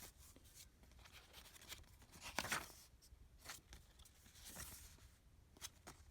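Faint paper rustles and soft handling sounds as the pages of a handmade junk journal are turned, the loudest about two and a half seconds in.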